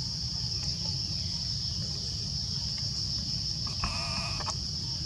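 Insects buzzing steadily at a high pitch over a low rumble. About four seconds in, a short bleat-like animal call lasts under a second.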